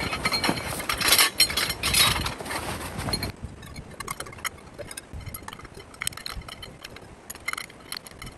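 Canvas bag rustling as it is handled, then, after a sudden drop in level about three seconds in, metal tent poles clinking against each other in scattered light clicks as they are laid out on the ground.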